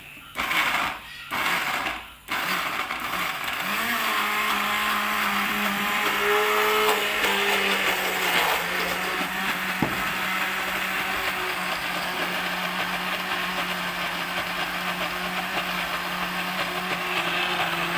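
Countertop glass-jar blender pulsed twice briefly, then run continuously, grinding chopped chillies and aromatics with oil into a paste. The motor's hum rises in pitch about four seconds in and then holds steady.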